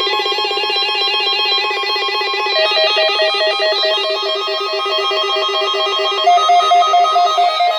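Emergency alert tones for an Amber Alert: a loud, harsh buzzing tone with several alarm tones layered over it. Rapid pulsing beeps join about two and a half seconds in, and a higher beeping pattern starts near the end.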